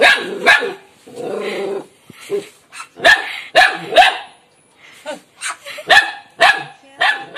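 Dog barking repeatedly in short volleys of two or three sharp barks, with a longer low growl about a second in.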